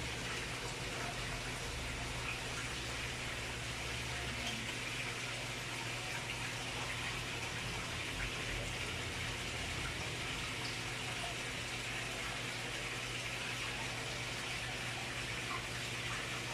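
Steady splashing of water pouring from an outlet onto the surface of a fish pond, with a steady low hum under it.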